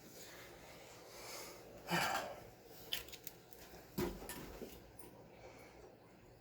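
Faint handling noises at a workbench: a few soft rubs, clicks and knocks, the clearest about two and four seconds in, over a low steady room hum.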